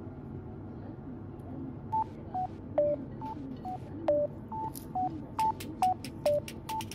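Background music: a light melody of short, crisp notes that comes in about two seconds in and hops between three or so pitches, over a soft low part.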